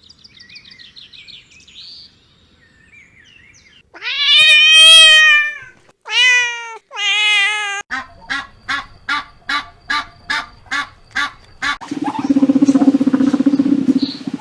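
A run of different domestic animal calls. Faint chirping comes first, then three long pitched calls that fall in pitch, then a quick string of about a dozen short calls, about three a second, and near the end a longer, buzzy call.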